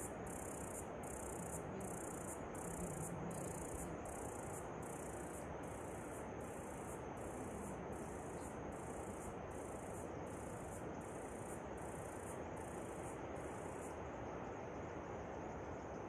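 An insect calling in a steady series of high-pitched pulses, a little more than one a second, that stops about fourteen seconds in, over the steady rush of falling water.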